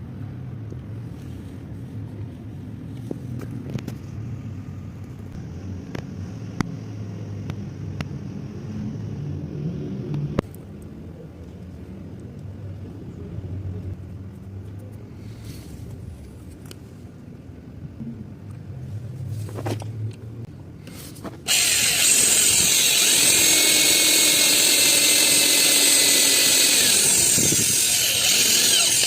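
Low knocking and handling noises, then a power tool starts abruptly about two-thirds of the way in and runs loud and steady.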